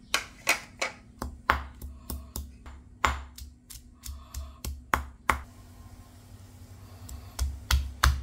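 Stone mortar and pestle pounding shallots, garlic and ginger: sharp knocks of stone on stone through the food, about three a second. They stop for about two seconds, then start again faster near the end.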